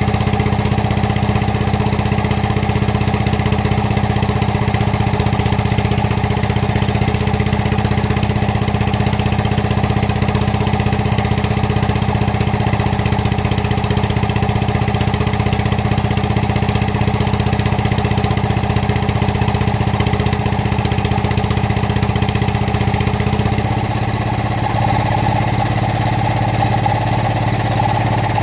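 Excavator engine running steadily. About 23 seconds in its note changes, a higher whine coming up as the overall sound drops a little.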